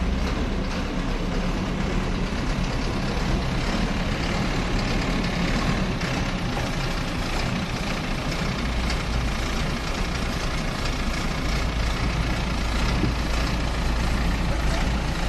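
Excavator's diesel engine running steadily with a deep, low rumble.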